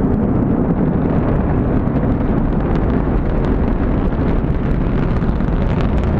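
Steady low rumble of the exploded Antares rocket's fireball, with faint crackles over it.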